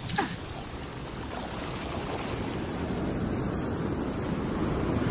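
Sea surf breaking on the shore, a steady rushing that grows louder towards the end. Right at the start, a short high call slides quickly down in pitch.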